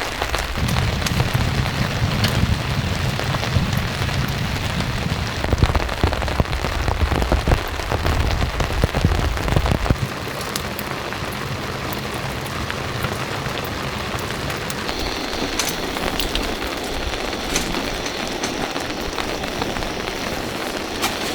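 Heavy rain falling steadily, with a deep low drumming under the hiss for the first half that stops suddenly about halfway through, leaving an even rain hiss with scattered sharp drip ticks.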